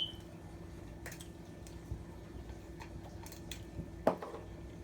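Quiet eating sounds from a person chewing food close to the microphone: scattered small wet clicks and smacks, with one sharper click about four seconds in, over a steady low hum.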